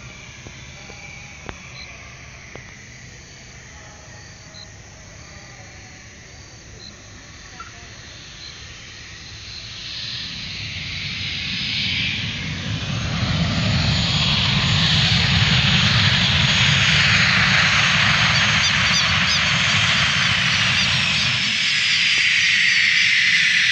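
Cessna Citation Bravo business jet's twin turbofans, faint at first and then swelling to loud over about four seconds as the jet comes in to land. A high whine falls steadily in pitch as it passes, and the low rumble drops away near the end. Short, regular faint chirps sound in the quiet before the jet arrives.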